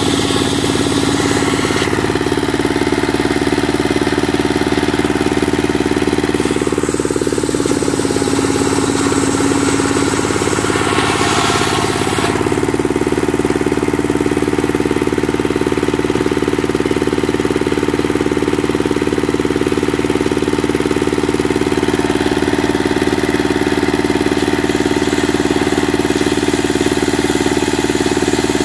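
Single-cylinder Dongfeng diesel engine running steadily, driving a circular sawmill blade.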